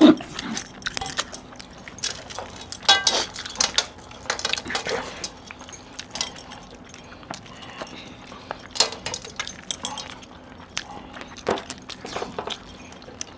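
Chicken curry and rice being eaten by hand off steel plates: wet chewing, smacking and tearing of meat, with metal rings and bracelets clinking and jangling now and then. These come as irregular short clicks and crackles, with a faint steady hum underneath.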